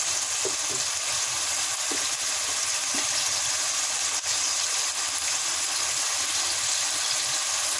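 Chopped onions and tomatoes sizzling in oil in a metal kadhai: a steady frying hiss, with one brief click about four seconds in.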